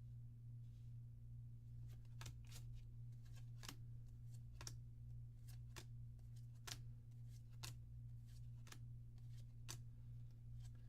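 Faint, irregular clicks and snaps of trading cards being handled and flipped through one at a time, over a steady low electrical hum.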